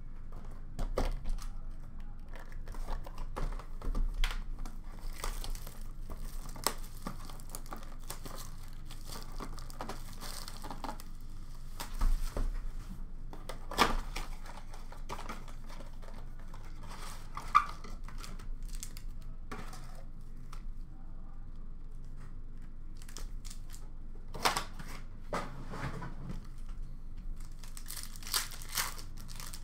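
Hockey card packs and a cardboard blaster box being torn and crinkled open by hand, with cards shuffled and handled, in scattered short bursts.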